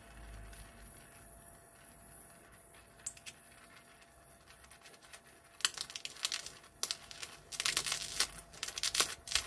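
Mini gas welding torch burning butane-propane with oxygen, hissing faintly on sheet metal; from about halfway through, the weld spits and crackles in a quick run of sharp pops as sparks fly, a sign that the weld is running a little too hot.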